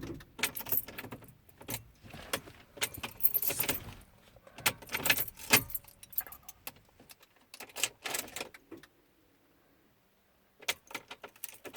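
A bunch of car keys jangling and clicking in irregular clusters as the key is worked in and out of the ignition lock, with a short quiet gap about nine seconds in. No engine cranks or starts: the anti-theft system has the car locked out.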